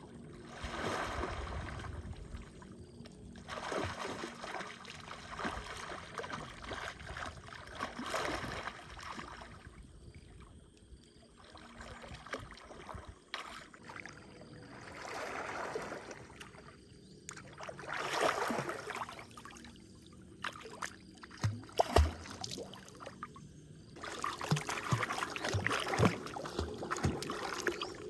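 Water splashing and sloshing in repeated swells, as when someone moves and washes in shallow lake water. There are a few sharp knocks a little past the middle.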